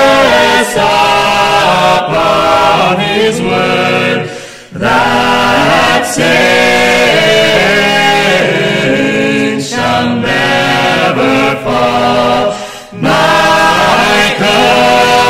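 Vocal ensemble singing a hymn in sustained multi-part harmony, with two brief pauses at phrase ends, about four and a half and thirteen seconds in.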